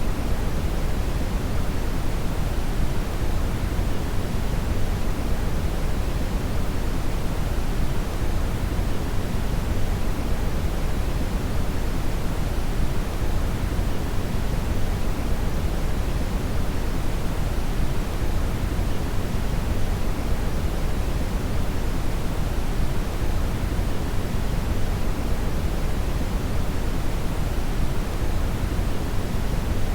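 Steady, unchanging brown noise (red noise): a deep, even hiss and rumble weighted toward the low end, with no events or changes.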